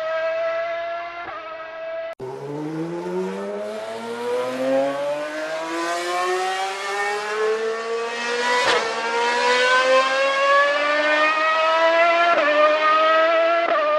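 Racing car engine running at high revs, then an abrupt cut about two seconds in to another racing engine accelerating hard. Its pitch climbs steadily for about ten seconds, with a sharp crack and a small dip in pitch near the end, like an upshift.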